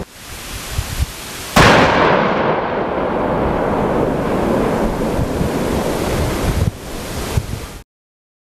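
A demolition charge detonating about a second and a half in: one sharp blast, then a long rumble that fades over several seconds. The sound cuts off abruptly near the end.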